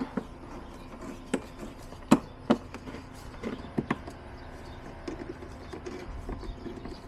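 Irregular light clicks and knocks, a handful in all, from a hand tool and plastic intake parts being handled on the BMW X3M's factory airbox and its clamps. The sharpest knock comes about two seconds in, over a faint steady hum.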